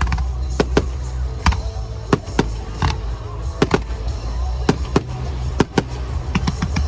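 Fireworks going off in a string of sharp, irregularly spaced bangs, more than a dozen, with a quick cluster near the end, over loud music with a steady low bass.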